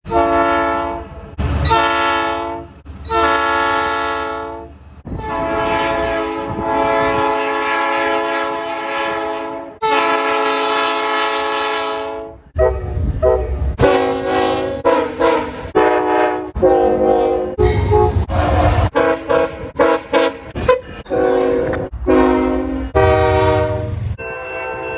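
Locomotive air horns sounding: a few long held blasts in the first half, then a quick run of short blasts over a deep engine rumble in the second half.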